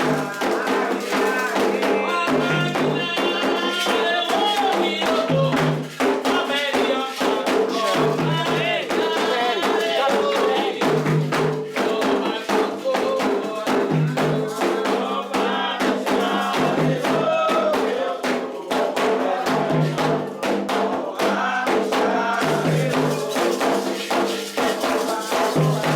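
Candomblé ritual music: atabaque hand drums and rattling percussion keep a dense, continuous rhythm while voices sing chants to the orixás over it.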